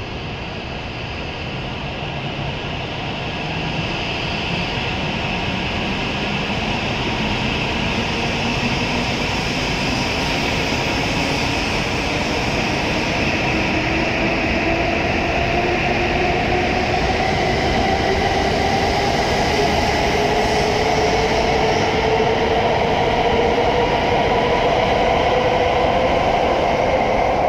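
E7-series Shinkansen train pulling out and accelerating, its traction-motor whine rising slowly and steadily in pitch over running noise that grows louder as the cars pass.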